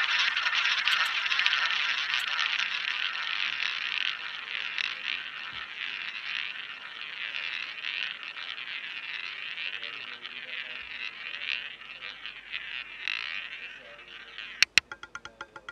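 Roulette ball rolling around the outer track of a spinning roulette wheel, a steady whirring that fades slowly as the ball loses speed. Near the end it drops, hits with two sharp clicks and rattles quickly over the pocket frets as it settles.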